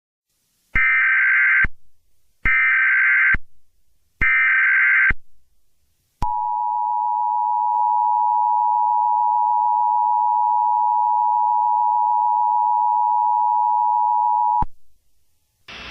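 Emergency Alert System header: three short bursts of SAME digital data tones, each about a second long with gaps between, then the two-tone EAS attention signal held steady for about eight seconds before cutting off sharply. This marks the start of an emergency alert broadcast. A faint hiss comes in at the very end.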